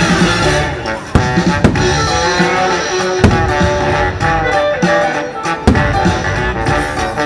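Show soundtrack music with drums and plucked strings, loud and steady, punctuated by a few sharp hits.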